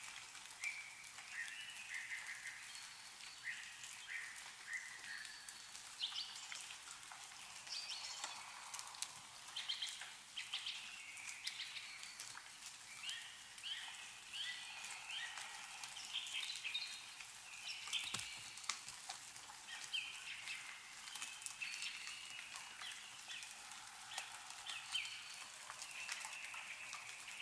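Small birds chirping over and over, with scattered drips of meltwater ticking down from snow melting off the trees.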